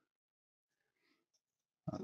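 Near silence, with a man's voice starting again near the end.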